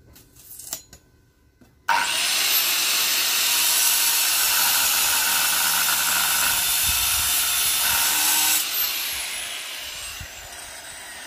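A few light clicks, then about two seconds in an angle grinder's cutting disc bites into a steel bar with a loud, steady grinding hiss. Near the end the cut finishes and the disc winds down with a falling whine.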